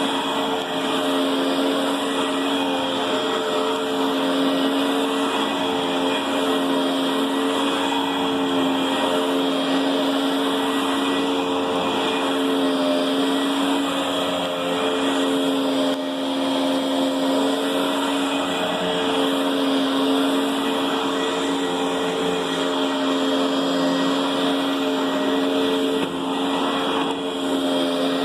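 Riccar Brilliance upright vacuum cleaner running steadily, a constant motor hum under a broad rush of air.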